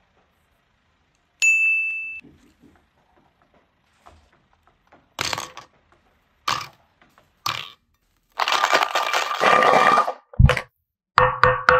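A single high, bell-like ding about a second and a half in, ringing out and fading within a second. Later come several short noisy bursts, a longer one lasting about two seconds, and a thud and clattering near the end.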